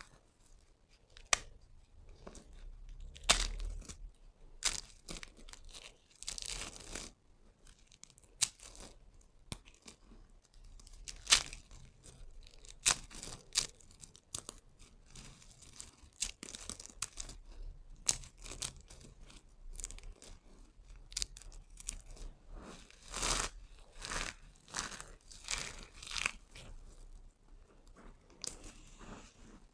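Dry, brittle soap cubes and strips crushed and crumbled between the fingers: irregular crunching and crackling, broken by sharp snaps, the loudest about eleven seconds in.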